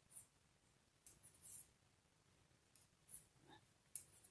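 Near silence with a few faint, short scratchy ticks: knitting needles and yarn being worked by hand.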